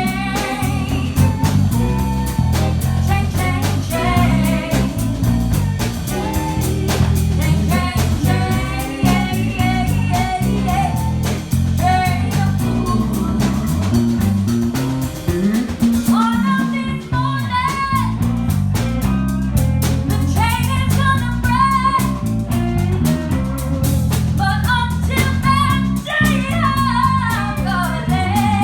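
Live band playing a song: a singer over guitar and a drum kit, with a strong low bass line and a steady beat.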